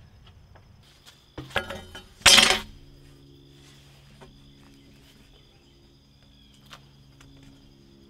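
A quick run of knocks ending in one loud, ringing clatter about two seconds in, over steady high insect chirping.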